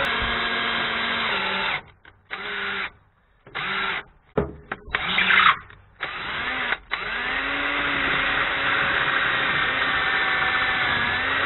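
Cordless drill boring a small centre hole into an RV's chassis frame, the bit guided by a nut wedged in the bracket hole. The motor whines steadily, runs in short stop-start bursts from about two seconds in to about seven, then runs steadily again.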